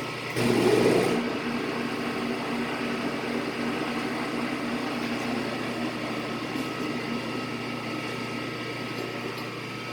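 Victor metal lathe running with its spindle turning at a high speed setting: a steady machine hum holding several even tones, louder for about a second near the start.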